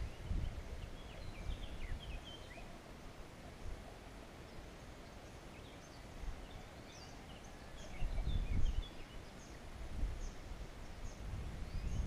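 Small birds chirping in short, quick rising and falling notes, in two spells. Under them, low rumbling on the microphone, louder about eight seconds in.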